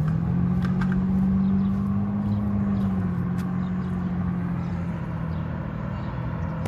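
Sports car engine revving up as the car pulls away, then holding a steady drone that eases slightly in pitch and loudness as it moves off.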